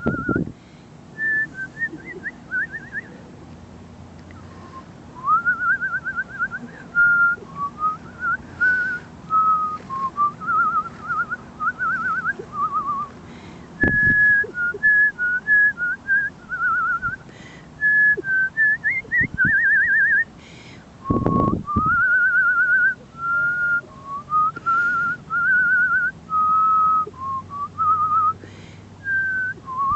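A person whistling a wandering tune in short phrases, with some notes warbled or trilled. A few brief low thumps come in, about a third and two-thirds of the way through.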